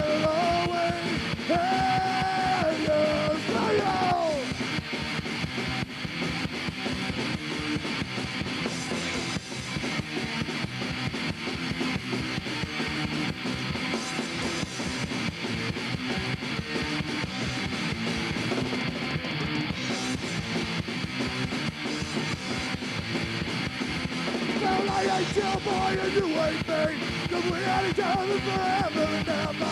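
Punk rock band playing a loud, fast song with distorted electric guitar, with sung and shouted vocals at the start and again from about three quarters of the way in.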